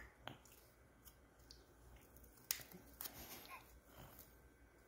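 Near silence with a few faint clicks and crunches: a baby biting and mouthing a snack cracker.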